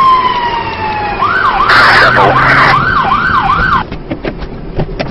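Police car siren: a wail falling in pitch, then quick rising-and-falling yelp cycles, about three a second, that stop a little under four seconds in.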